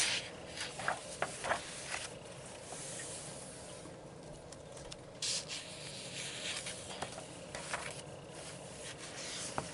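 Paper rustling as the pages of a softcover coloring book are turned and smoothed flat by hand, with soft rubbing of palms sliding over the paper. It comes in a few short surges.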